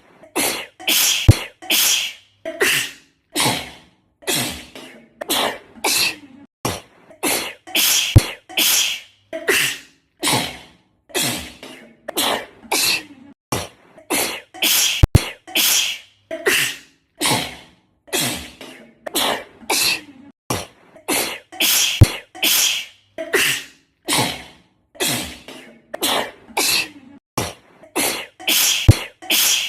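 A girl sneezing over and over in quick succession, about one and a half sneezes a second. A sharp click cuts in about every seven seconds.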